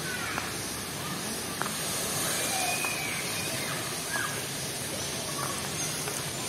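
Steady background hiss with a few faint short chirps and a couple of soft clicks.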